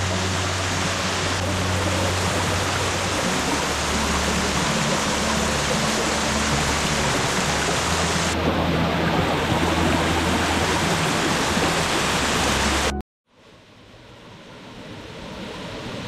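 Loud, steady rushing of river water pouring over a cascade, with low steady music notes underneath. It cuts off abruptly about thirteen seconds in, and a fainter sound then fades back up.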